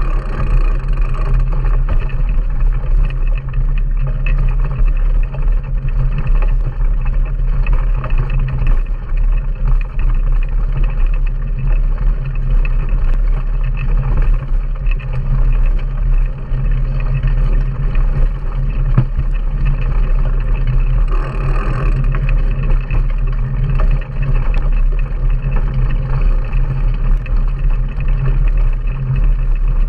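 Wind buffeting and tyre rumble from a mountain bike riding over a bumpy sandy track, heard through an action camera mounted on the handlebars, with frequent small rattling clicks.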